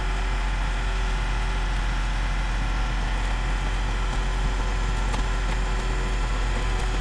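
E-Z Crusher car crusher running steadily, its engine and hydraulic pump driving the lid down on two stacked cars. A few faint cracks come through as the cars crumple.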